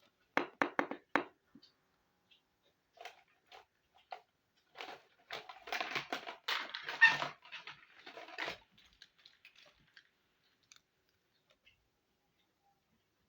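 Small hard toy pieces being handled: four quick sharp clicks, then a few seconds of crackly clattering and scraping that is loudest around the middle and dies away after about ten seconds.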